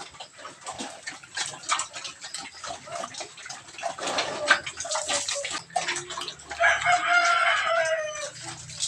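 Water splashing and pattering as dippers of water are poured over a pregnant sow and rubbed into its back. A rooster crows once about two-thirds of the way in, one call of nearly two seconds.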